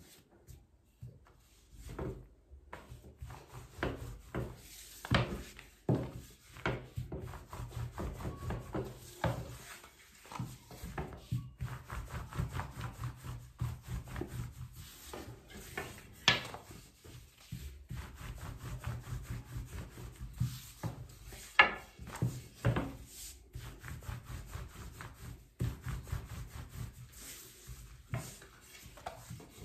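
Long thin wooden rolling pin (oklava) rolling back and forth over thin börek dough on a floured glass countertop: a repeated rubbing rumble as the dough is wound around the pin and rolled out. A few sharp knocks come along the way, the loudest about two-thirds through.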